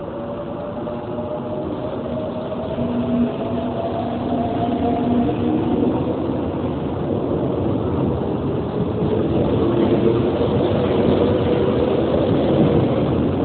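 Train running on the rails, getting steadily louder, with a few hum tones that drift slowly in pitch over the rumble.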